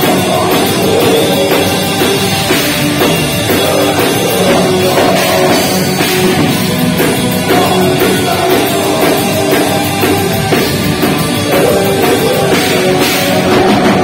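Live heavy metal band playing loud: electric guitars over a drum kit.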